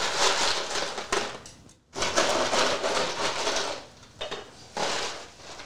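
Ice cubes clattering and grinding against a stainless steel brew pot and plastic tub as the pot of hot wort is pushed down into an ice bath, in three spells with short breaks.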